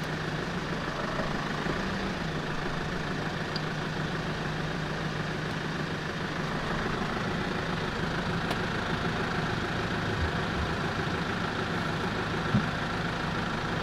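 Mitsubishi Triton pickup's engine idling steadily.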